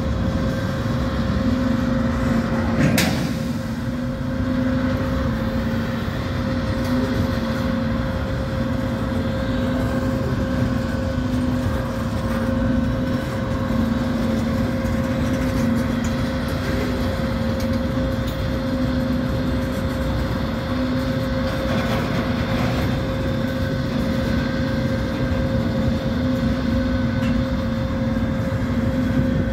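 Freight train cars rolling past at a grade crossing: a steady rumble of wheels on rail, with a steady tone running beneath. There is a single sharp clank about three seconds in.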